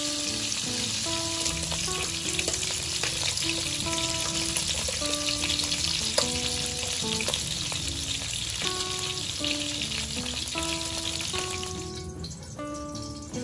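Pork ribs sizzling and crackling as they fry in oil in a wok, with a sharp clack about six seconds in as tongs turn them; the sizzle dies away near the end. Light background music with a simple melody plays under it.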